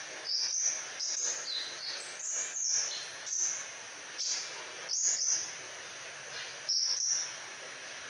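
Crimson sunbird singing: short, thin, very high notes and chips coming in quick clusters, with a brief lull after the middle, over a steady background hiss.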